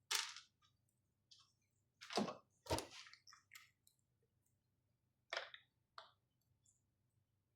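Scattered clicks, knocks and rustles of ventilator parts being handled and fitted back into place, about eight short sounds with pauses between them.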